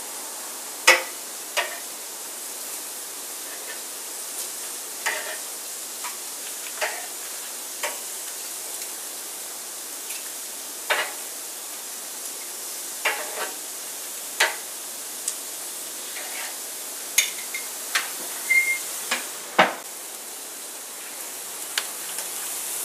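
Kitchen clatter: scattered sharp clinks and knocks of pots and utensils being handled, some ringing briefly, with a cluster of them near the end, over a steady hiss.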